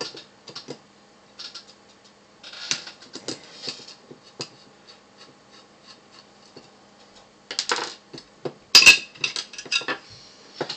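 Small metal clicks, taps and light scrapes from the parts of a Seagate Barracuda ATA III hard drive being handled and set down on a wooden desk, with a louder, quicker run of clicks and clinks about eight to nine seconds in.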